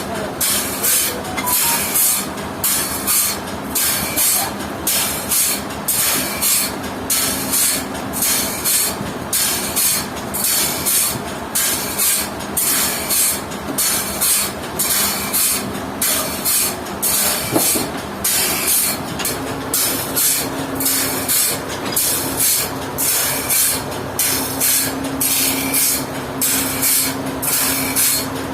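Sawmill machinery running loud and steady, with a rhythmic hiss pulsing about one and a half to two times a second over a steady hum. The hum shifts slightly in pitch about two-thirds of the way through.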